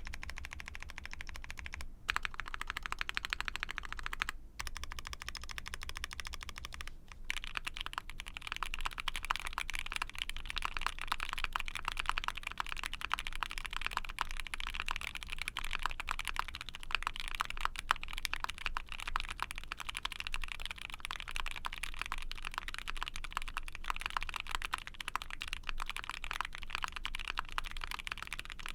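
Typing on an Ai03 Vega mechanical keyboard with a POM plate, factory-lubed Gateron Oil King linear switches and GMK keycaps: a fast, steady stream of keystrokes. There are brief pauses in the first seven seconds.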